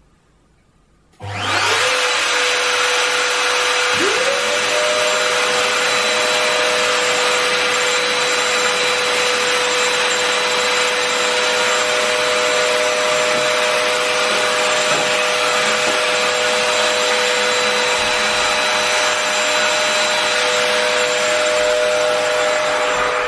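A Makita RT07 trim router at full speed (about 30,000 RPM) and a dust-collection vacuum switch on about a second in and three seconds later. Each motor spins up to a steady whine over loud running noise. At the very end the sound drops sharply as the soundproof enclosure is shut.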